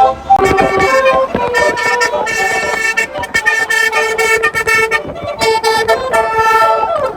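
Bus telolet horn, a multi-tone air horn, playing a melody of held notes that change every half second or so, with notes sliding down near the end.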